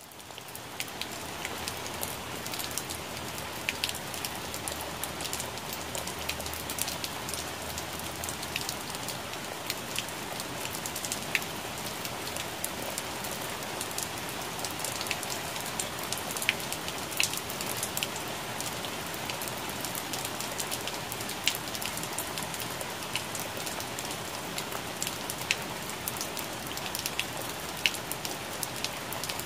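Steady rain falling on plant leaves, heard as a constant hiss with many sharp individual drop taps. It rises in over the first second and then holds even.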